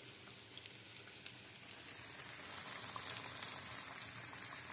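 Potato, onion and spinach pakoras sizzling as they deep-fry in hot oil: a steady hiss with scattered small pops, growing louder about two seconds in.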